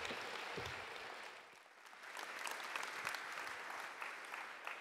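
Audience applauding. The applause thins out about one and a half seconds in, swells again, then tapers off near the end.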